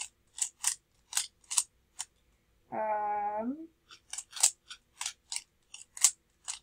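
Plastic speed cube's layers being turned fast in a solve: a string of sharp clicks, about two to three a second. About three seconds in they stop for a second while someone hums a short note.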